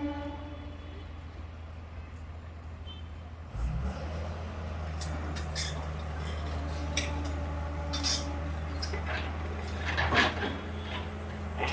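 A heavy demolition machine's engine running steadily, low and droning. From about four seconds in it comes through louder, with many irregular sharp clanks and knocks of metal and debris being struck.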